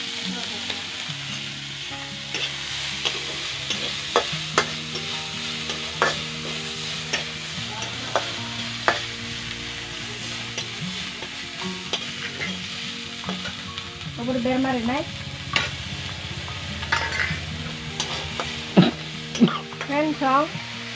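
Green chilli paste and fish frying in a metal wok, with a steady oil sizzle. A metal spatula stirs and scrapes through it, knocking against the pan in sharp, irregular clicks.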